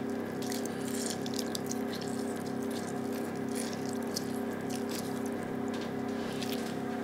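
Lemon squeezed by hand, its juice dripping and spattering onto raw cod loins in a ceramic dish as a run of small wet ticks, over a steady low hum.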